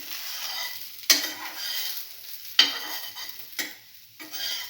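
A utensil moving a slice of bread around in a bowl of egg, cinnamon and chili-sauce mixture: a sharp knock every second or so, each followed by a wet scraping and stirring, about four times.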